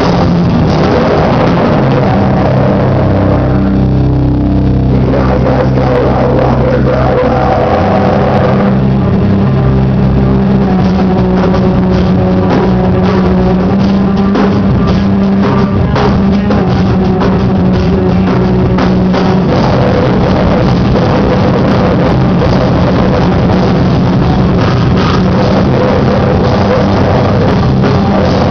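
A live band plays loud, heavy rock: distorted electric guitar over a drum kit, with the cymbals dropping out briefly about four seconds in.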